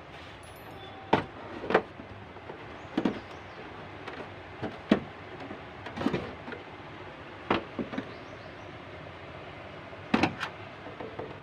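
Scattered plastic knocks and clicks, about nine in all and irregularly spaced, as the plastic back cover of an LED TV is handled and lifted off the set. A steady low hiss runs underneath.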